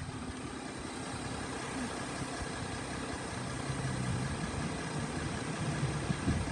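Volkswagen Amarok's engine idling steadily, a low even rumble.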